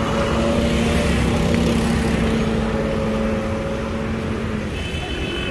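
Road traffic: a motor vehicle's steady engine hum over low road rumble, its pitch sinking slightly before it fades near the end.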